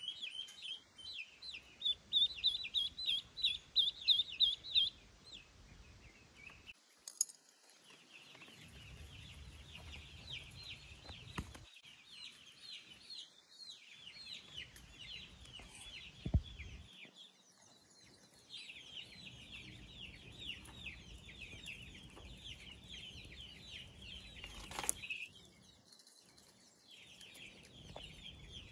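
Ducklings peeping in rapid, high chirps, loudest in the first few seconds, with a few short pauses.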